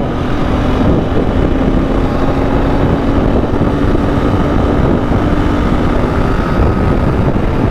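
Motorcycle riding noise on a Royal Enfield Continental GT650 at speed: wind rushing over the rider's microphone mixed with engine and road drone. A steady droning tone runs through it and stops about six seconds in.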